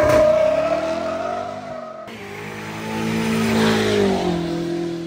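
Burnout clips cut together: a car's tyres squealing with a steady high tone while its engine revs, then after about two seconds another engine revving up and holding with its wheels spinning.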